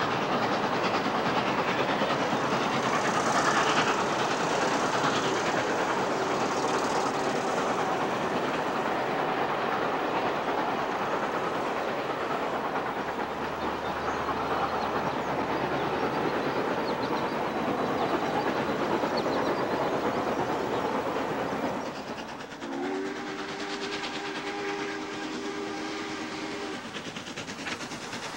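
Norfolk & Western Class J 611's excursion train rolling along the track, a steady rush of wheel and rail noise with clickety-clack. About 22 seconds in, the 611's steam whistle blows one long chord of several notes for about five seconds, sliding up into pitch as it opens.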